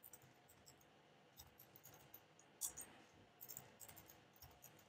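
Faint computer keyboard keystrokes, scattered single clicks with a quicker run of them past the middle.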